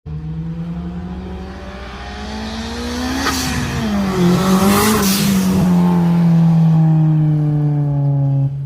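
Turbocharged Honda Civic engine accelerating with a slowly rising pitch, then two sharp hissing 'sneezes' about three and five seconds in as boost is let off. After that it runs steadily with its pitch slowly falling.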